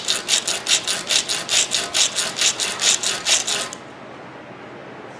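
Blender motor carbon brush rubbed back and forth on rough sandpaper: quick rasping strokes, about five a second, stopping about four seconds in. The brush is being sanded down so it no longer sticks in its holder.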